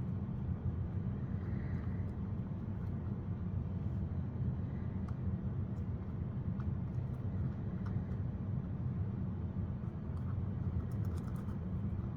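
Steady low rumble of background machine noise, like a fan or distant traffic, at an even level. A few faint small clicks and ticks from handling sit over it, with a short cluster near the end.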